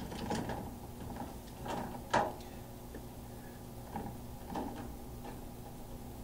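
Scattered light clicks and knocks of things being handled, the sharpest a little over two seconds in, over a steady low hum.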